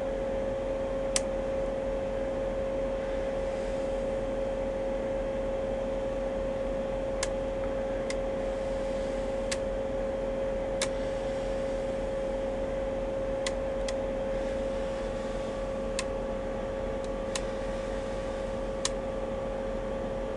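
Steady electrical whine from a pipe inspection camera system, with about ten sharp clicks at irregular intervals as the camera is pushed along the pipe.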